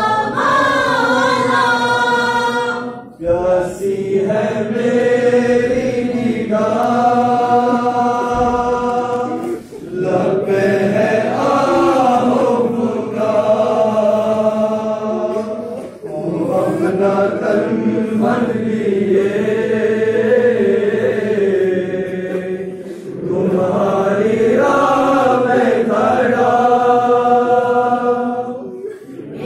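A group of young male voices chanting a devotional tarana in unison into a microphone, in long sung phrases with short breaths between them about every six or seven seconds.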